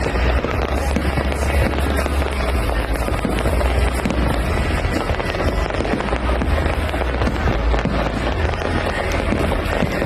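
Fireworks display: a dense, continuous run of bursts and bangs with a heavy low rumble.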